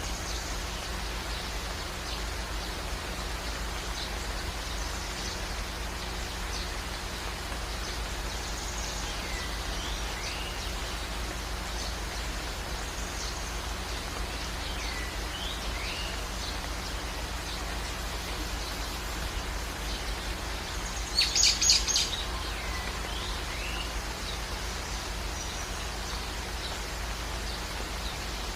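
Steady rain with songbirds chirping now and then in short rising and falling calls. About three quarters of the way through, a bird gives a short, loud burst of rapid notes.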